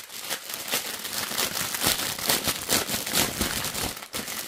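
Clear plastic wrapping around a bundle of bagged diamond-painting drills crinkling as it is handled and pulled open, with dense, irregular crackling.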